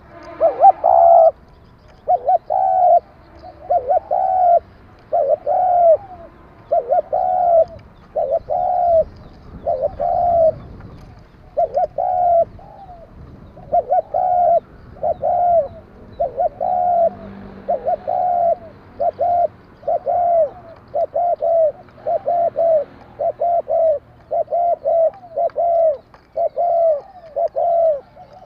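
Spotted dove cooing steadily, a long run of short, arching coos, often two or three close together; a voice type that Vietnamese dove keepers call 'đồng kim'.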